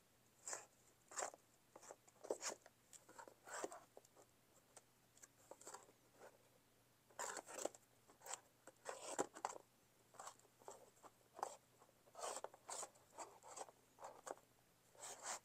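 Fingers flicking through stacks of sports cards in rigid plastic holders packed in a cardboard storage box: soft, irregular plastic clicks and rustles, several to a second in places.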